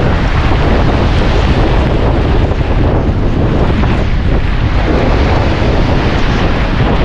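Strong onshore wind buffeting the microphone, loud and steady, over heavy surf breaking on the shore.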